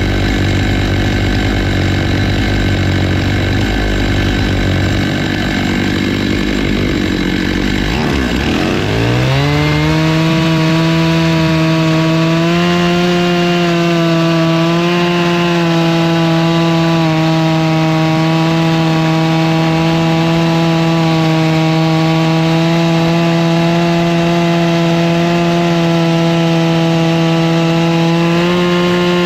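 Stihl MS 661 two-stroke chainsaw with a 20-inch bar and ripping chain, mounted in a Logosol F2 Plus chainsaw mill. It runs rough at lower revs, is throttled up about eight seconds in with a quick rise in pitch, and then holds steady at high revs while ripping along a black walnut log.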